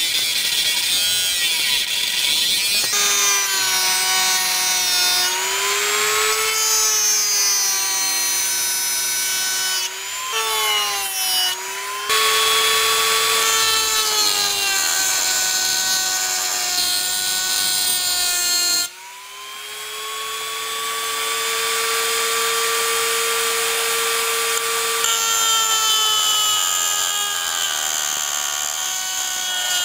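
Small high-speed rotary tool fitted with a 22 mm cutting disc, cutting into material. The motor whine sags in pitch under load and recovers, mixed with a rasping cutting noise. About two-thirds of the way through the rasping drops away suddenly, leaving a steadier whine, then builds back.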